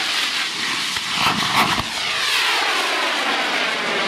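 Several high-power rocket motors (K and L class) burning after a simultaneous launch: a steady rushing roar with a whoosh that sweeps downward in pitch as the rockets climb away. A few sharp cracks come about a second in.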